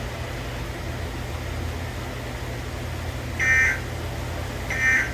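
Emergency Alert System end-of-message signal: short bursts of two-tone digital data, the first about three and a half seconds in and the second just over a second later. Underneath is a steady low hum.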